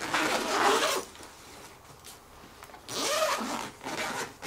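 Zipper on the fabric cover under an upholstered club chair being pulled open in two long rasping pulls, one at the start lasting about a second and another about three seconds in.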